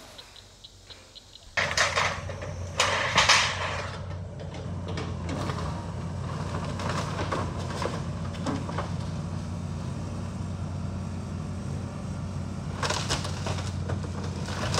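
Heavy demolition machine's engine running steadily with a low hum, which comes in abruptly about a second and a half in. Debris crashes and clatters as the house is pulled down, loudest about two and three seconds in and again near the end.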